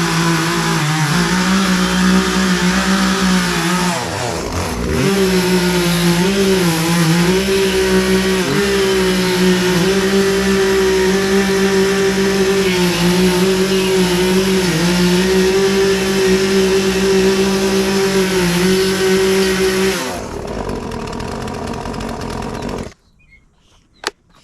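Chainsaw engine running under load while cutting into wood, its pitch wavering as the bar bites. It dips and picks up again about four seconds in, eases off near the end, then stops abruptly.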